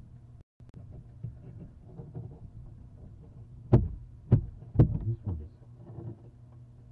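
Three sharp knocks about half a second apart, with a few fainter bumps, against the inside of a barn owl nest box, over a steady low hum.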